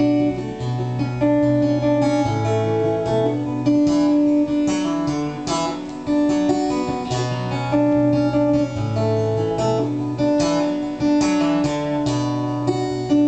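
Steel-string acoustic guitar played solo in an instrumental break: a melody over repeating bass notes, with strummed chords.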